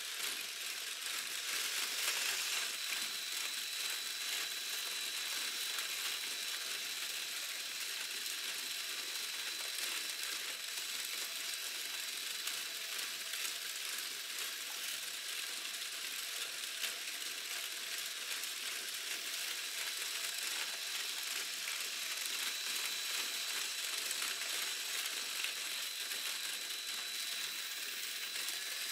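Lego Technic model train mechanism running: electric motors and plastic gears making a dense, steady clicking rattle with a thin, high, steady whine.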